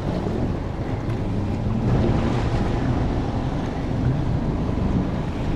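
Wind buffeting the microphone over lapping lake water, a steady rushing noise with a faint low hum underneath.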